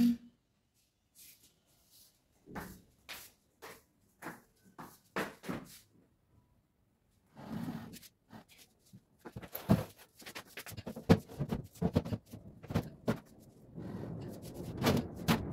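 Knocks and clicks of small household items being picked up and set down on a TV stand, becoming a busy clatter of handling about nine seconds in. Near the end a steadier scraping noise sets in as a tall floor mirror is shifted.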